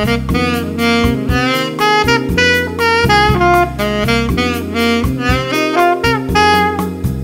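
Saxophone improvising a quick jazz line of many short notes with slides, over a backing track with steady low chords. The line is built on the D minor blues scale, with the added flat fifth (G sharp) as a passing note between G and A, played over a Dsus7 chord.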